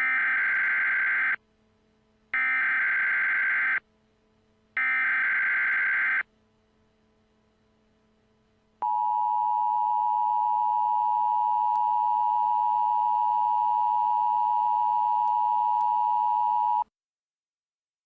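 Emergency Alert System header tones: three identical bursts of screechy data tone, each about a second and a half long with a second between them, then after a pause the steady two-tone EAS attention signal held about eight seconds before cutting off. This is the tone sequence that opens an EAS alert, which the uploader notes is not a valid real one.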